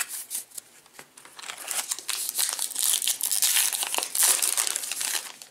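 Trading-card pack wrapper crinkling as it is torn open by hand. The crinkling starts about a second and a half in and goes on until the cards are out.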